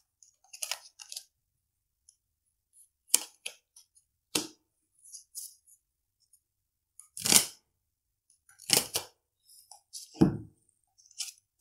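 Tarot cards being hand-shuffled: short papery swishes and flicks every second or two. About ten seconds in, a heavier tap as a card is laid on the wooden desk.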